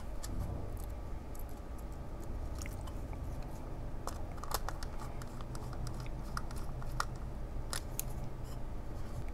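Faint, scattered small clicks and scratches of wire ends and a screwdriver working a plastic screw-terminal strip, over a low steady hum.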